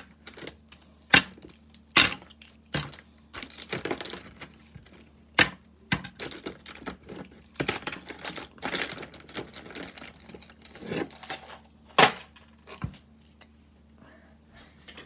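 Plastic fidget toys being handled and rummaged in a plastic basket: irregular sharp clicks and clacks, a few much louder, between stretches of rustling.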